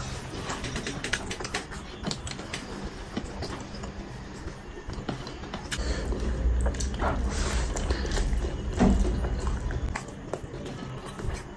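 Close-miked eating sounds: wet chewing, lip smacks and rice squished in the fingers as chicken biryani is eaten by hand. A low rumble runs for about four seconds in the middle.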